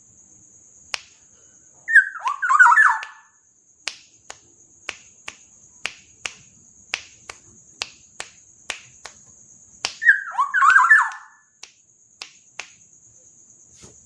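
Black-naped oriole (kepodang) singing two short, loud, fluted whistled phrases about eight seconds apart. Between the phrases come a run of sharp clicks, about three a second, over a steady high-pitched tone.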